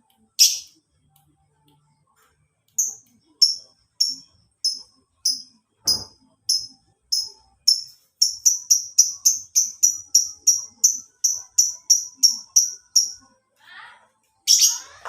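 Lovebird calling: a run of short, sharp, high chirps, slow at first and then speeding up to about three or four a second before stopping. One louder, harsher call comes at the start and another near the end.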